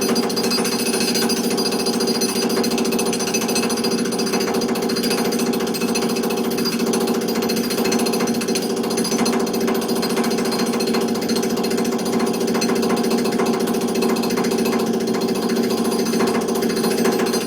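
Jackhammer breaking up an old concrete sidewalk, hammering continuously at a rapid, even rate.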